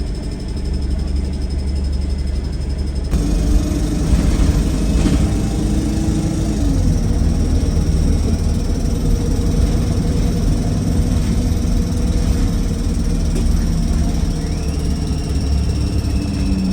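Wright StreetLite bus running and making a very loud, strange noise of unknown cause: a steady engine rumble with droning tones and a high whine over it. The sound becomes fuller about three seconds in, and one of the droning tones drops in pitch a few seconds later.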